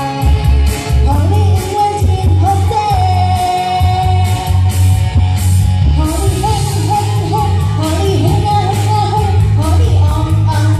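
A woman singing a pop song into a microphone over a loud backing track with a heavy, steady bass beat, all through a stage PA; she holds one long note about three seconds in.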